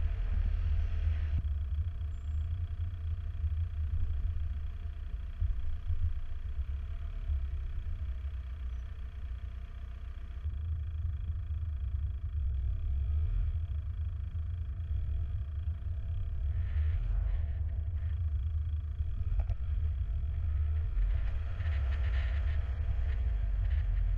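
Steady low rumble of a car being driven, the engine and road noise heard from inside the cabin, with brief louder swells of tyre or passing-traffic noise about two-thirds of the way through and near the end.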